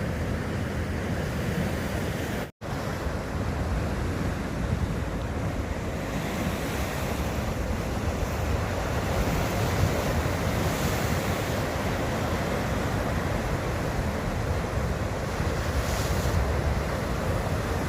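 Sea waves washing in, with wind buffeting the microphone. The sound drops out for an instant about two and a half seconds in.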